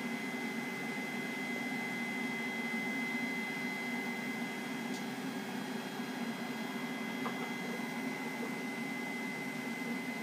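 Tefal ActiFry 2in1 YV9601 air fryer running with a steady whoosh of its hot-air fan, a low hum and a thin high whine, while its paddle stirs the fries.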